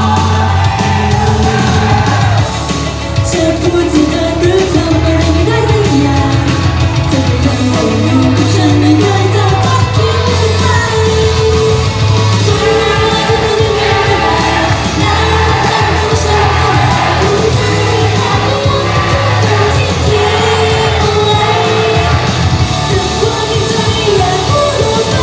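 Idol-pop song played loud through a stage sound system, with singing over a backing track and a steady bass line, along with some yelling.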